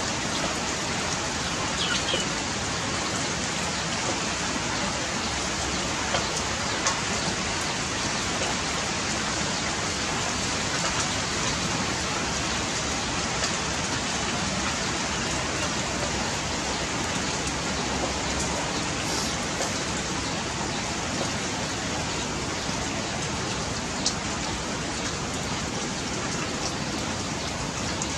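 Steady hiss of rain, with a few faint clicks.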